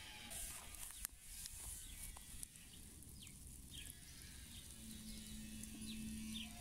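Quiet outdoor ambience with a few short, falling bird chirps scattered through it. A low steady hum comes in near the end.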